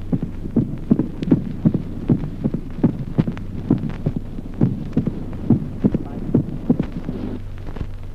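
Auscultated heart sounds in regular sinus rhythm: each beat has a dull first sound, then the second sound followed after a short interval by a crisp mitral opening snap, typical of mitral stenosis. A steady low hum runs underneath, and the beats stop shortly before the end.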